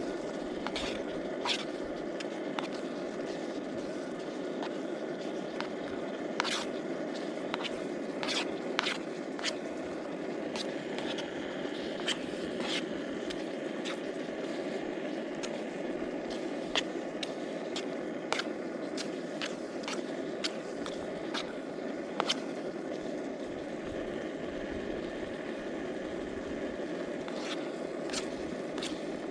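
A portable camping stove burner running with a steady low rush under a pot of cooking pasta. A spoon stirring the pasta makes scattered scrapes and sharp clicks against the pot.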